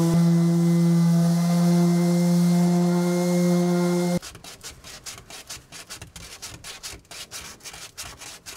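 Electric sander running steadily, sanding down fairing compound, then cutting off suddenly about four seconds in. Quieter rubbing strokes follow, several a second.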